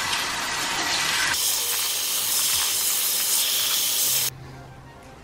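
Water spraying from a salon shampoo-bowl hand sprayer onto hair and into the basin, rinsing out hair colour: a steady hiss that turns brighter after about a second and cuts off suddenly about four seconds in.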